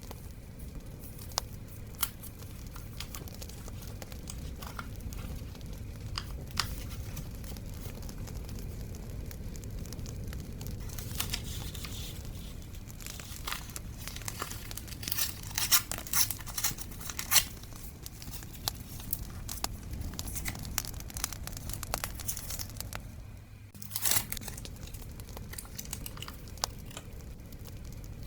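Close-up paper sounds from scrapbooking: paper and stickers tearing, crinkling and rustling, with scattered sharp clicks, a dense run of louder crackles a little past the middle and a brief louder rustle near the end. Under it runs a steady low bonfire ambience.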